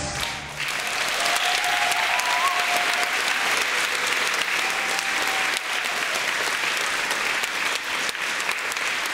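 Music stops in the first half second, then an audience applauds steadily, with one long rising call from the crowd about two seconds in.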